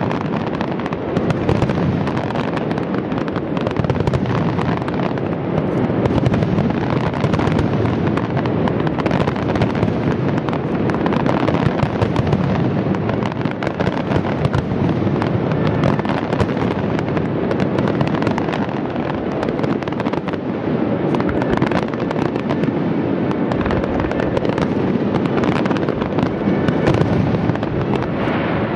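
Fireworks display: aerial shells bursting one after another with no break. Many sharp bangs and crackles run together into a dense, steady volley.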